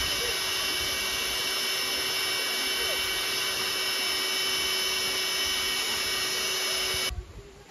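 Electric air pump running steadily as it inflates an air mattress, a constant whine over a motor hum, switched off suddenly near the end.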